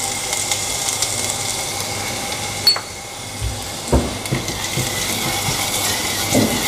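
Hot oil sizzling and crackling in a pan, spattering because the pan was not wiped dry before the oil went in. A sharp clink comes about two and a half seconds in, and there are light knocks about a second later and near the end.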